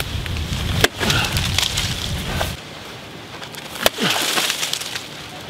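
Homemade 8-pound double-bit battle axe, forged from a pick axe head, chopping into a fallen log: two sharp strikes about three seconds apart.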